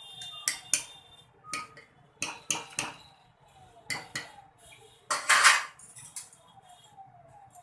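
A metal spoon knocking and clinking against a metal cooking pot: about a dozen short, ringing knocks, with one louder, longer scrape about five seconds in.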